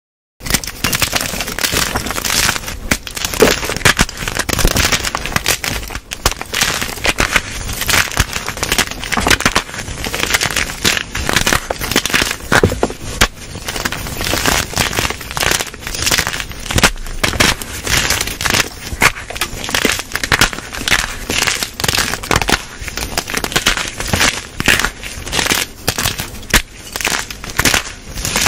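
Blocks of gym chalk (magnesium carbonate) crushed by hand in a tray: continuous, dense crackling and crunching as the blocks snap into chunks and crumble to powder.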